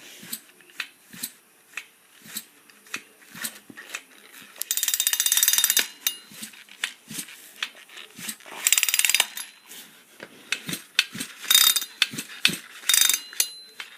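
Husqvarna chainsaw's recoil starter rope pulled four times, each pull a short ratcheting whir as the engine turns over, with light clicks and handling knocks between pulls. The saw has no carburetor fitted, so it is only being cranked against its compression, and each pull takes quite a bit of force.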